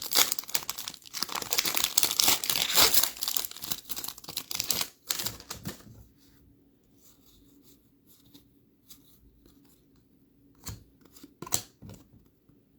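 A trading card pack's foil wrapper is torn open and crinkled for about six seconds. Then it goes quiet except for a few short soft taps near the end.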